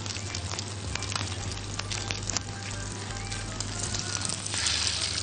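Butter and oil sizzling and crackling in a hot frying pan. Near the end the hiss swells as a raw chicken ball goes into the fat.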